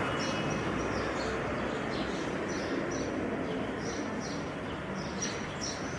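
Small birds chirping: a run of short, high, falling chirps, often in pairs, repeating throughout over a steady background hiss.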